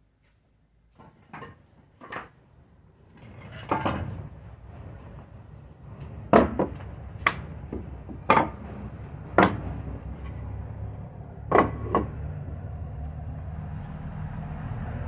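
Sharp knocks of work on wood, struck about once a second for a stretch, as pieces of a small wooden counter are fitted together. A low rumble builds underneath.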